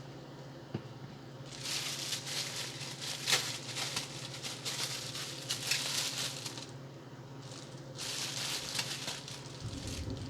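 Crinkling and rustling of plastic food packaging being handled, in two spells: a longer one of about five seconds, then a shorter one of about two seconds.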